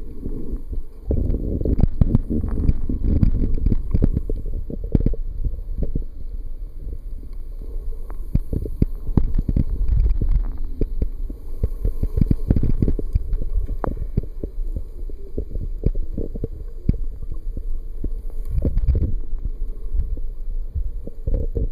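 Muffled underwater sound picked up by a camera held under the sea: a steady low rumble of water moving around the microphone, with many short clicks and crackles scattered through it.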